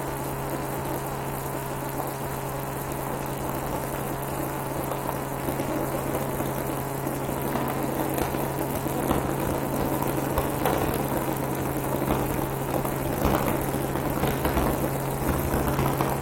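Helicopter noise: a steady engine and rotor sound with a constant low hum, growing a little louder about halfway through, with a few small crackles.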